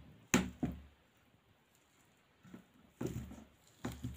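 Fingers mixing rice and curry on a steel plate: a few short clicks and soft squishes, two near the start and a few more from about three seconds in.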